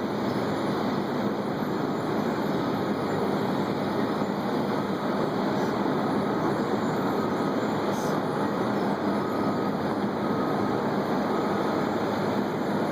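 Heavy asphalt-milling and paving machinery running steadily, a loud, even grinding rumble. A faint beep repeats roughly once a second through the middle.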